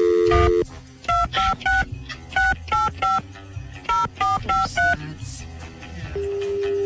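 A telephone's dial tone cuts off about half a second in. A quick string of about a dozen touch-tone (DTMF) beeps follows as a number is dialed, and a steady line tone sounds again near the end.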